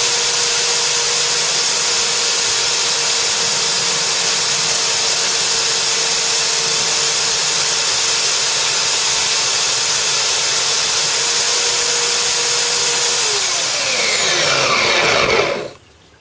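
Silverline 810 W belt sander running steadily with a steady motor whine, its belt sanding a piece of oak. About 13 s in it is switched off and the motor winds down, falling in pitch over about two seconds to a stop.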